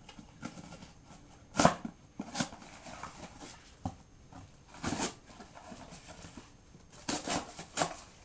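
Cardboard being sliced with a folding knife's S30V blade: a few separate, short rasping strokes, the loudest about a second and a half in and a quick run of them near the end.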